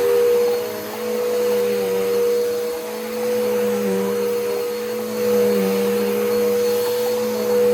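Bissell Powerforce Bagless Turbo upright vacuum running while vacuuming: a steady motor whine, with pitch and level dipping and recovering every couple of seconds.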